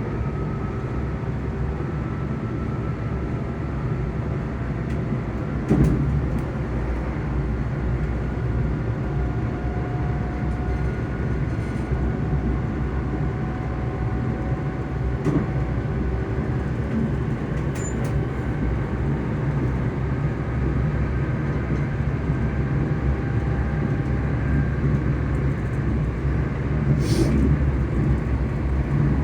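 ScotRail Class 385 electric multiple unit heard from on board while running: its traction motors hum with faint whine tones that drift slowly in pitch over a steady low rumble. There is a single knock about six seconds in and a short hiss near the end.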